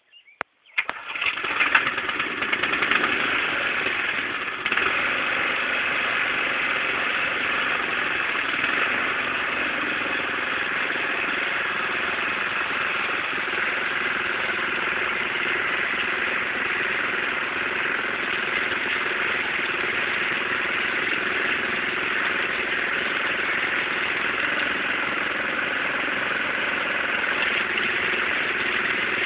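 Briggs & Stratton engine on an old Simplicity walk-behind tractor starting about a second in, then running at a steady idle.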